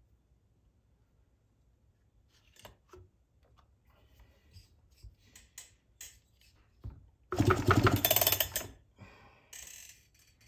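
Small clicks and knocks as a chainsaw and tools are handled on a workbench, then a louder clatter lasting about a second and a half, followed by a shorter rattle near the end.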